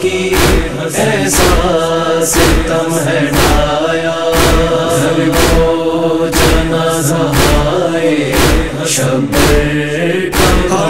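Noha chorus chanting a sustained wordless lament over a steady beat about twice a second.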